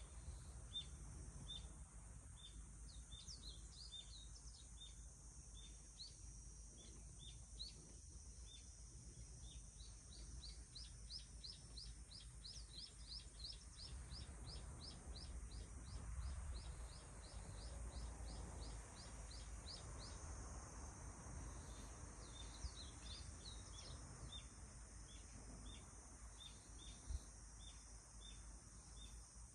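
Faint outdoor ambience with small birds chirping. One repeats a short high note about twice a second throughout, and another gives long runs of quick falling notes, several a second, for stretches in the first two-thirds and briefly near the end.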